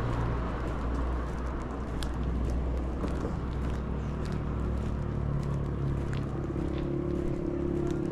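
Outdoor road ambience: footsteps on asphalt about twice a second over a steady low rumble, with a vehicle engine hum growing in the second half.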